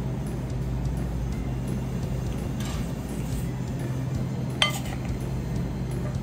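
Steady low room hum, with one sharp, ringing clink of a utensil against a dish about four and a half seconds in.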